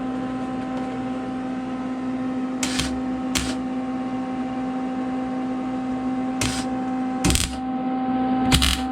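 Steady shop hum, with five short noisy bursts about a quarter-second each, from shop equipment being switched on briefly.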